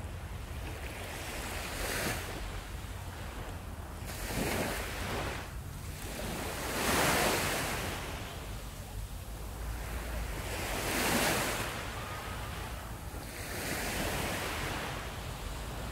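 Sea surf washing onto a sandy beach: several swells of hiss that build and fade a few seconds apart, over a steady low rumble of wind on the microphone.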